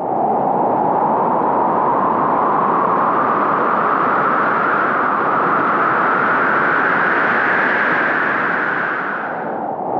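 Intro sound effect: a steady, rushing, wind-like noise whose pitch slowly rises over several seconds, then dips briefly near the end.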